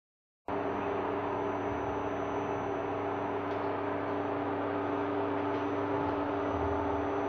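Induction cooktop running under a pot of heating oil: a steady electrical hum made of several held tones over an even hiss, cutting in suddenly about half a second in.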